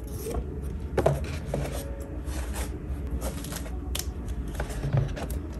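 Photocards and plastic binder sleeves being handled: soft rustling with scattered light clicks, and one sharper tick about four seconds in.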